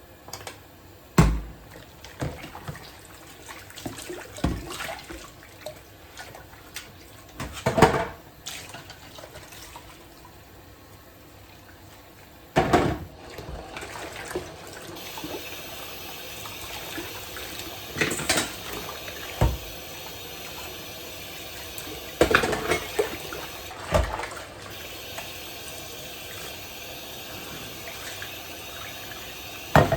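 Scattered knocks and clatters, then water running steadily from a tap into a sink from about halfway through, with further knocks over it.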